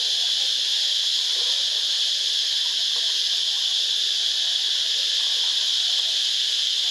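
Steady, unchanging high-pitched drone of insects.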